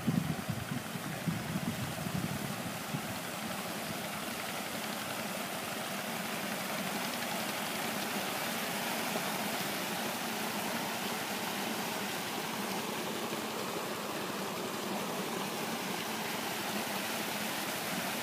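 Water from a solar tubewell's discharge pipe gushing steadily into a concrete basin and irrigation channel. There is low buffeting on the microphone in the first few seconds.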